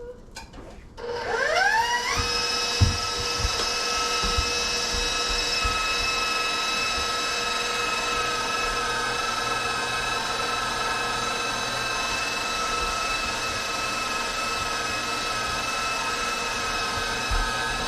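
Electric meat grinder starting about a second in, its motor whine rising quickly to speed and then running steadily while grinding chuck roast and sirloin, with a few low knocks.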